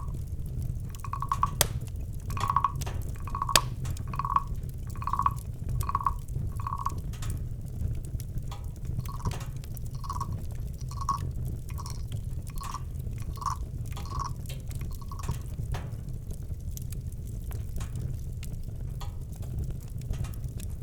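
A small owl giving a long series of evenly spaced whistled toots, a little over one a second, that stops about fifteen seconds in. Campfire crackles and a steady low rumble run beneath.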